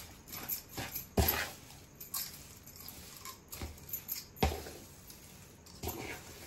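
A spatula scrapes and knocks against a large aluminium kadhai while stirring and pressing a crumbly jaggery-and-ghee laddoo mixture. The strokes are irregular, with a louder knock about a second in and another past the middle.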